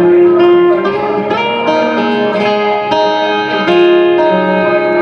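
Live music with no singing: a guitar plays a melodic passage of plucked notes that change about every half second to a second.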